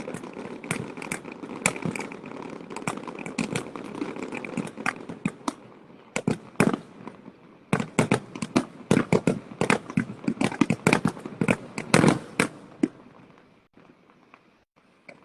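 Fireworks going off: a dense run of sharp bangs and crackles over a steady rumble, bunching loudest in the middle and then thinning out and stopping near the end.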